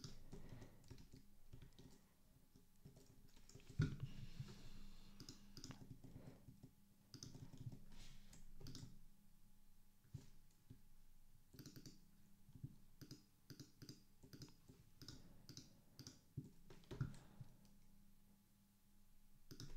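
Faint, irregular clicking of computer keyboard keys being typed on, in short scattered runs of keystrokes.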